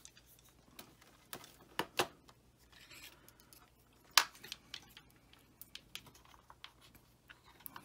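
Handling noise of small parts on a tabletop: scattered clicks and taps of a 3D-printed plastic holder, an LED ring and a small DC spindle motor being picked up, fitted and set down. A sharper click stands out about four seconds in.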